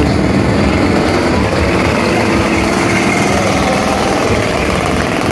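Small engine of a giant-wheeled motorised vehicle running steadily.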